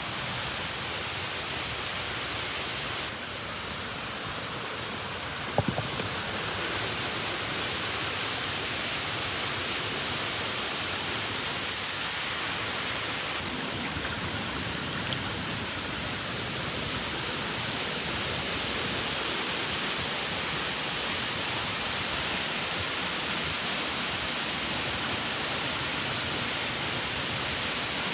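Steady rushing roar of a tall waterfall, its water falling onto rock into a pool, heard from close by. A single brief knock comes about five and a half seconds in.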